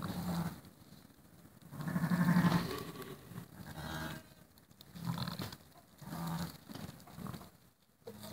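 Ewes giving short, low-pitched murmuring calls to their newborn lamb while licking it, about six calls, the longest and loudest about two seconds in. The low rumble is the call a ewe makes to a lamb just after birth.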